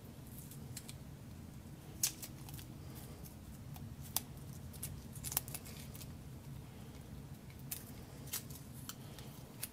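Small sharp metallic clicks and light scrapes at irregular intervals, the loudest about two seconds in, as a stainless steel dagger with pine scales is handled and fingered along the blade where masking tape has left a little residue. A steady low hum runs underneath.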